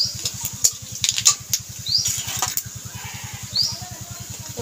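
Whole cumin seeds spluttering in hot oil in a kadai, with onion and bay leaves: irregular sharp crackles and pops. A short high rising chirp repeats about every two seconds, over a low steady throb.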